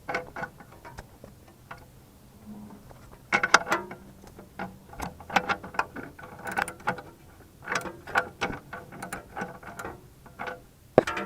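Irregular metallic clicking and clinking of hand tools working on a loosened downstream oxygen sensor under a car.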